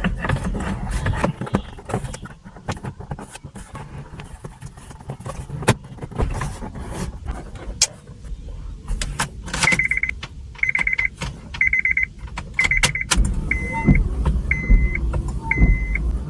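Clicks and rattles of parts and wiring being handled, then, from about ten seconds in, a car's electronic warning chime beeping about once a second, as the ignition is switched on to power up the new head unit.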